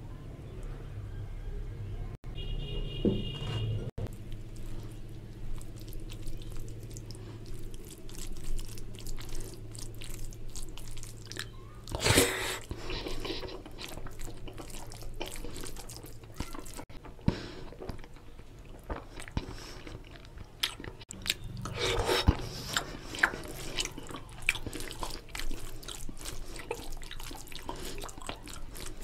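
Close-up eating sounds: curry gravy poured onto rice, then fingers mixing rice with oily mutton curry, making small wet clicks, and chewing of mouthfuls. There are two louder bursts, about twelve and twenty-two seconds in.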